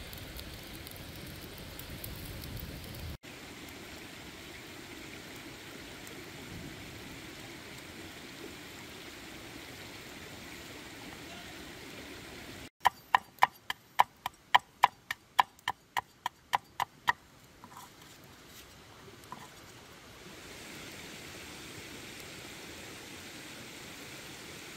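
Steady rushing of stream water, with a run of about fourteen sharp knife chops on a wooden cutting board, three or four a second, lasting about four seconds midway through.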